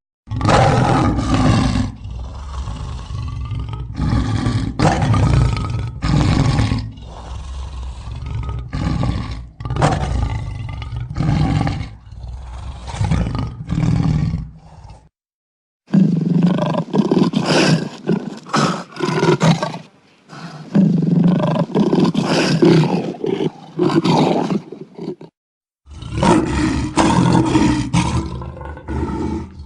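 Lion roaring: a run of repeated deep, loud grunting roars. They come in three takes, each cut off suddenly by a short gap of silence, about 15 and 25 seconds in.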